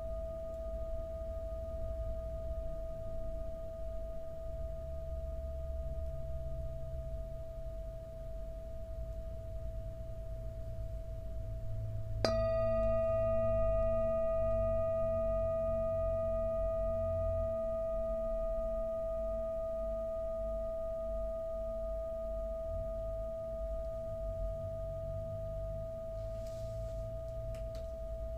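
Metal singing bowl ringing with a steady, pure tone. About twelve seconds in it is struck with a wooden mallet, and the ring grows louder with extra higher overtones and a low hum, then fades slowly. A few faint clicks come near the end.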